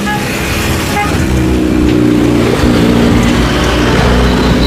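Twin-engine wide-body jet airliner at takeoff thrust on its takeoff roll: a loud, steady engine roar with a tone that rises through the middle of the stretch.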